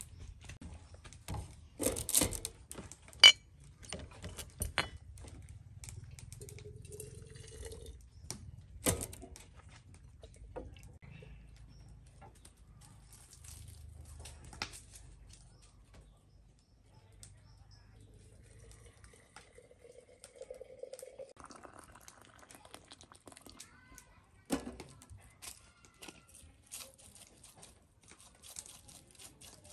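Scattered clinks and knocks of a teapot, drinking glass and plastic tray being set down and handled on a bamboo table, the sharpest about three seconds in.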